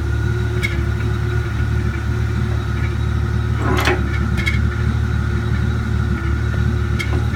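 Tractor engine idling steadily, with a few sharp clicks over it, the loudest about four seconds in.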